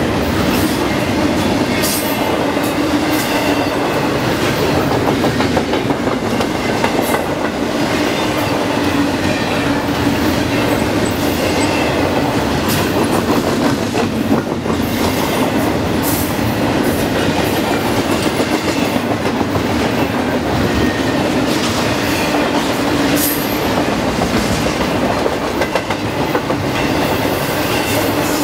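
A train's cars rolling steadily past at close range, with a constant rumble and the irregular clicking of wheels over rail joints.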